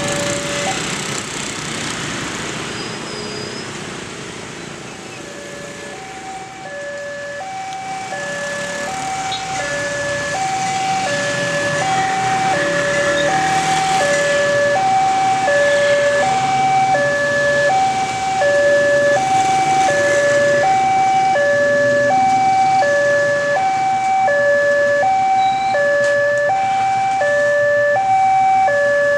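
Railway level-crossing warning alarm: an electronic chime alternating between a high and a low tone, each about two-thirds of a second long. It cuts off within the first second, then starts again about six seconds in and keeps going, growing louder, to warn of an approaching train. Motorbike and car traffic runs underneath.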